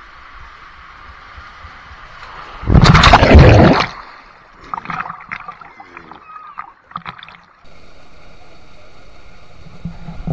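Water rushing through an enclosed waterslide tube, then a loud splash about three seconds in as the rider shoots out into the pool, followed by water sloshing and gurgling around a camera at the water's surface. A steady hiss takes over abruptly near the end.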